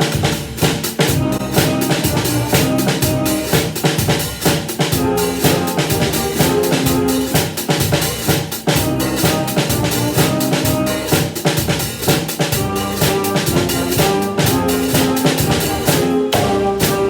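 Drum kit played along with a recorded band accompaniment: bass drum and snare alternating in a steady walking beat, with eighth notes on a closed hi-hat.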